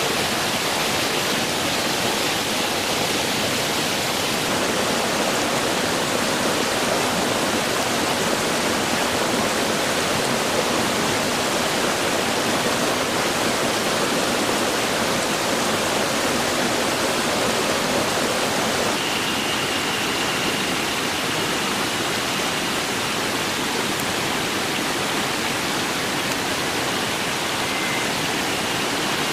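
Small rocky mountain stream rushing steadily over stones. A faint thin high tone comes in about two-thirds of the way through.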